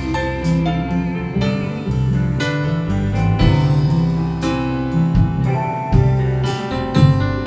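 Live gospel worship music played on keyboard piano, with sustained chords over a bass line in a slow instrumental passage.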